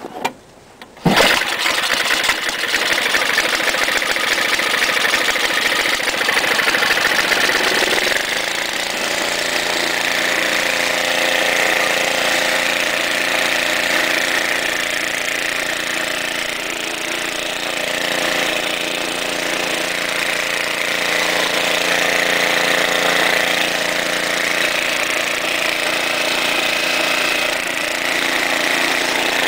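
Snowblower engine starting about a second in, then running steadily; its pitch shifts and settles about eight seconds in.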